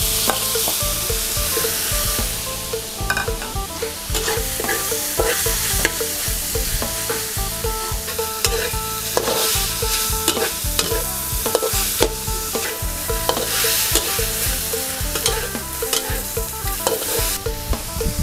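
Raw eel pieces frying in hot oil and red curry paste in a metal wok, sizzling steadily, while a metal spatula stirs them with repeated scrapes and knocks against the pan.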